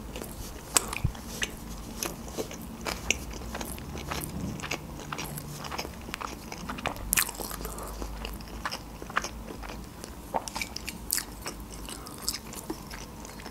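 Close-miked chewing of a mouthful of deep-fried (tempura) sushi roll, with irregular crisp crunches and small wet mouth clicks.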